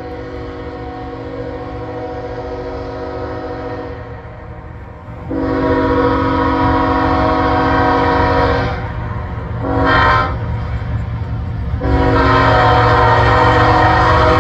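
Air horn of the approaching lead locomotive, Norfolk Southern 8099, sounding the grade-crossing signal: two long blasts, one short, then a last long blast that runs past the end. A steady low diesel rumble lies under it.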